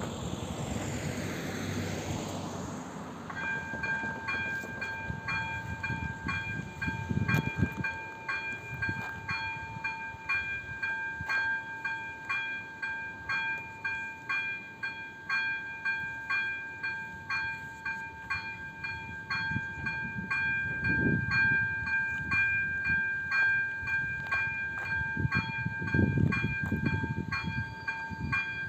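Electronic warning bell of a Czech level crossing starts about three seconds in and then rings on in an even repeated rhythm, signalling that a train is approaching and the crossing is closing. Before it, a road vehicle passes, and low rumbles rise and fall under the ringing a few times.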